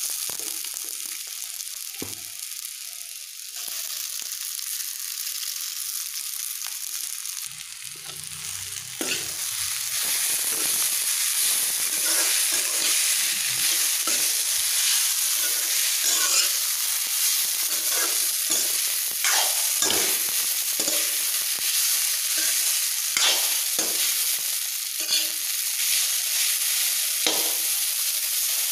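Boiled noodles sizzling in hot oil in a metal wok while a metal spoon stirs and tosses them, scraping and knocking against the pan. The stirring gets louder and busier about nine seconds in.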